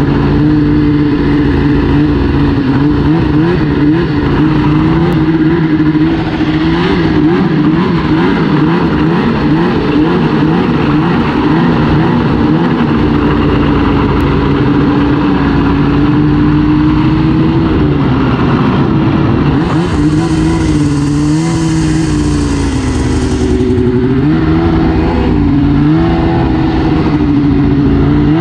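2002 Arctic Cat ZR 800 Cross Country snowmobile's two-stroke twin running under way, its pitch rising and falling as the throttle is worked. A high hiss joins in for a few seconds about two-thirds of the way through.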